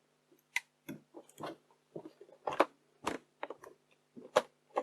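Irregular plastic clicks and clacks from the opened Yashica Video 8 camcorder as it is handled and its cog and worm-wheel mechanism is worked after power is applied. A faint steady hum runs underneath.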